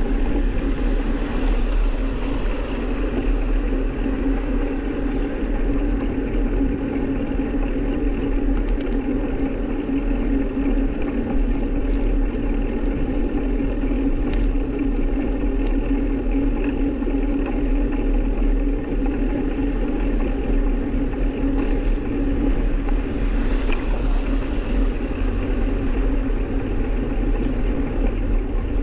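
Steady travel noise from a moving action camera: wind rumbling on the microphone over an even drone with a steady low hum, without a break.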